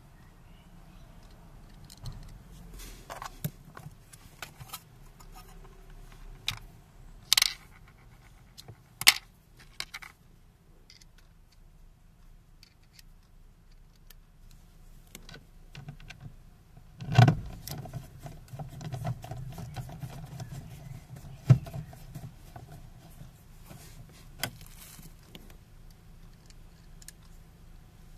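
Plastic door trim panel of a Renault Clio 1 being handled and fitted by hand: a series of sharp clicks and taps, a louder knock about 17 seconds in, then a few seconds of rubbing against the panel and another click.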